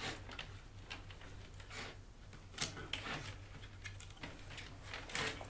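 Willow rods being pair-woven by hand around willow uprights, with faint, scattered taps and scrapes as the rods rub and knock against the uprights and the wooden base board.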